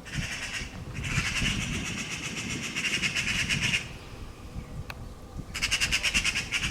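Eurasian magpies giving their harsh, rapid rattling alarm chatter in three bouts: a short one at the start, a long one of nearly three seconds, and another near the end. The chatter of magpies mobbing a predator.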